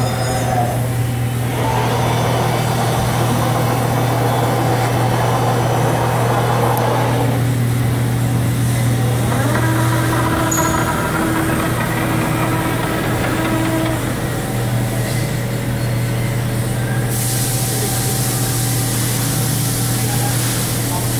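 Heavy machinery running with a steady low hum. A higher steady tone joins for a few seconds in the middle, and a hiss starts near the end.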